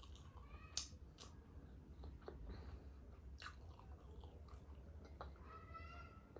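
Close-up mouth sounds of someone chewing and biting soft sweets, with a few sharp clicks and smacks and a brief hum near the end.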